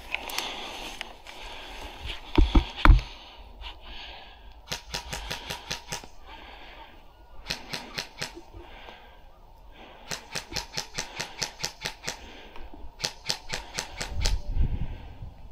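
Airsoft guns firing on full auto: four short bursts of rapid, evenly spaced clicking, roughly ten shots a second. A few heavy knocks come about two and a half seconds in.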